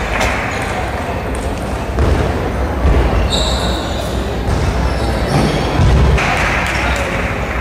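Table tennis balls clicking off tables and bats in a large hall, scattered and irregular, over a steady background of voices. A brief high squeak about three seconds in.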